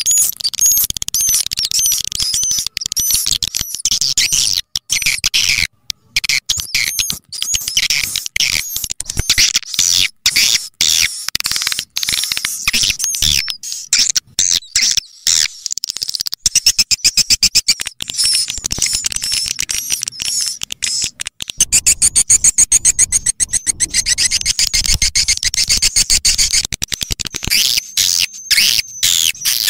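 Swiftlet call sound (suara panggil walet): a looped recording of swiftlet chirps, rapid high-pitched twittering broken by short gaps, turning to dense fast buzzy trills about halfway through and again later. It is a lure call that swiftlet farmers play through an amplifier and speakers to draw swiftlets into a nesting house.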